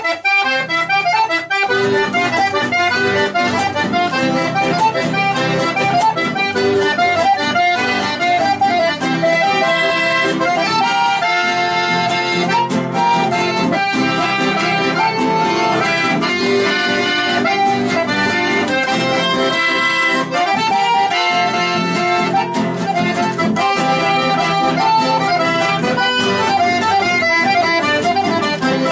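Live Argentine folk music of the litoral led by accordion, playing a steady melody.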